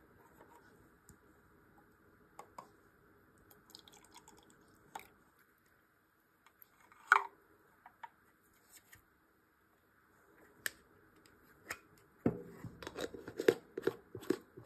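Plastic parts of a brush-cleaning water dispenser being handled and fitted together: scattered light clicks and knocks, one sharper knock about seven seconds in, and a run of clattering near the end.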